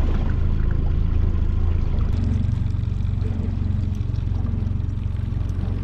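Small tiller outboard motor running steadily at trolling speed, a low even hum, with water washing along the aluminum hull.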